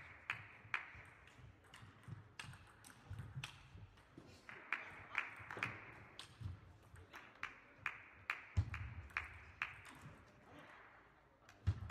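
Table tennis rallies: the celluloid-type ball clicking sharply off the table and the players' rubber-faced bats about twice a second, each click with a short ringing tail in a large hall. Occasional low thuds come in between, the loudest about three-quarters of the way through.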